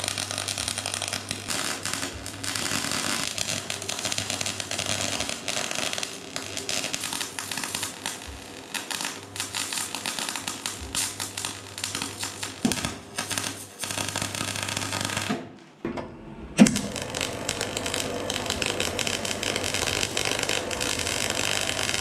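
Electric arc welding on steel: the arc crackles and spits in runs, with short stops between beads and a brief break about three-quarters of the way through. A low steady hum sits under the first part.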